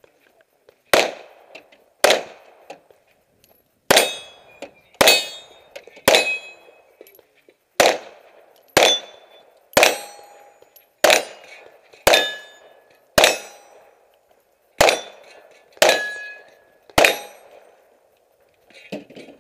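Handgun shots, about fourteen, roughly one a second with a couple of short pauses. Several are followed by a brief metallic ring from steel targets being hit. A short shuffling rattle near the end.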